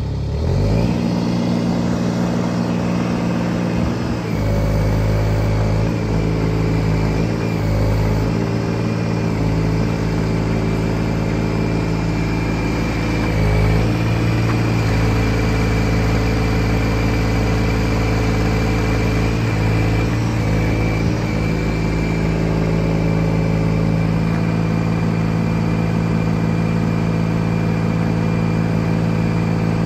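Moffett M4 truck-mounted forklift's diesel engine running as the machine is driven and manoeuvred. The engine speed rises and falls a few times in the first two-thirds, then holds steady near the end.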